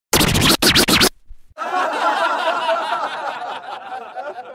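Logo-intro sound effects: a loud scratchy burst in the first second, then a warbling, wavering sound that starts about a second and a half in and slowly fades away.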